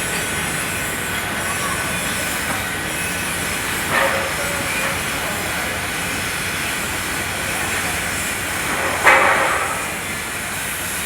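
Electric arc welding: a steady hiss and crackle of the arc, with two brief louder flares about four and nine seconds in.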